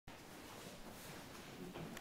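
Faint room tone: a steady low hiss with no distinct sound standing out.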